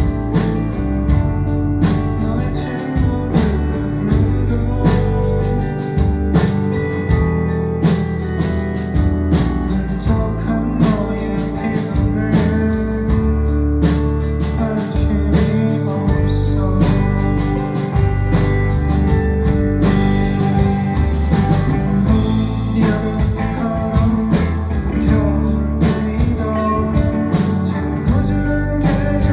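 Live rock band playing: guitars, bass and drums keeping a steady beat.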